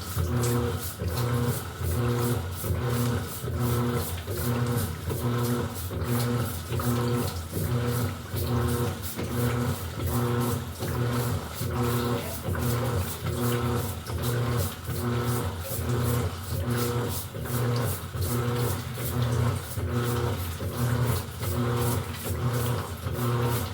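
Electrolux LED14 top-loading washing machine agitating: the motor hums and the load churns in even pulses about once a second as the agitator turns back and forth.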